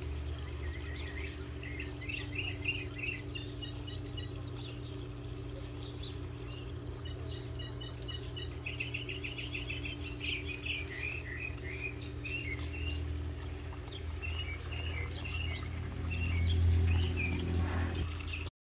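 Birds chirping and trilling over water pouring steadily from a pond's waterfall spillway into the pond. The sound cuts off abruptly near the end.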